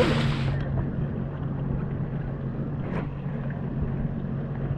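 Sea-Doo Fish Pro personal watercraft engine. After a moment of fast running with wind on the microphone, it settles into a steady low drone, moving slowly with water churning behind. There is one short click about three seconds in.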